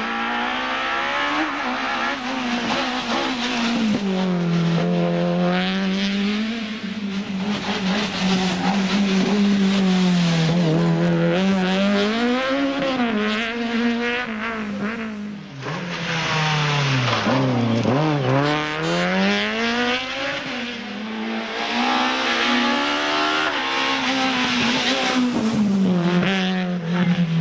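Peugeot 206 rally car's four-cylinder engine driven hard on a stage, its pitch rising and falling repeatedly as it accelerates, changes gear and lifts for corners. A deep drop comes about two-thirds of the way through.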